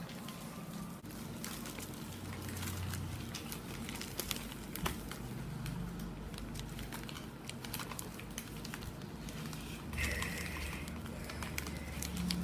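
Origami paper crinkling and crackling in short, scattered crackles as it is folded and creased by hand against a table, over a steady low hum. A short higher-pitched sound comes in about ten seconds in.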